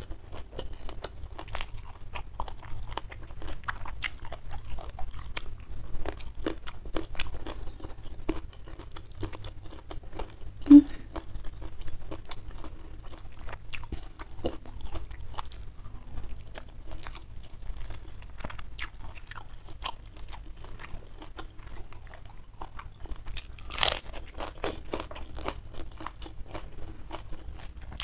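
Close-miked chewing and crunching of food, many small crisp clicks of biting and mastication, with a sharper, louder crunch near the end.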